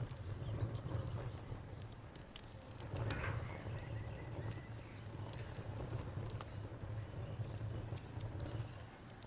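Campfire burning with irregular sharp crackles and pops over a low steady rumble, and crickets chirping steadily in the background.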